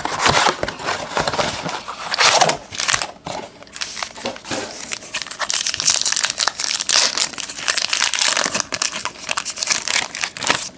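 Plastic wrapping on a baseball card blaster box and its packs being torn open and crinkled by hand, an irregular crackling rustle that swells and fades throughout.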